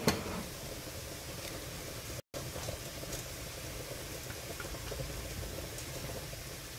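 Faint steady hiss of background noise, with a short sharp sound just after the start and a brief cut to silence a little over two seconds in.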